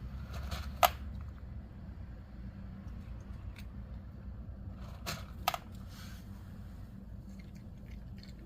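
A cat eating dry kibble: a few sharp crunching clicks, the loudest about a second in and two more close together around five seconds in, over a steady low hum.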